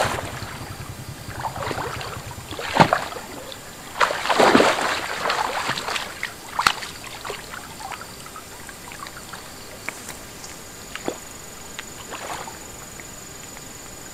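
A hooked fish thrashing and splashing at the surface of the water, in several irregular splashes that are loudest in the first half and then die down to small, scattered splashes.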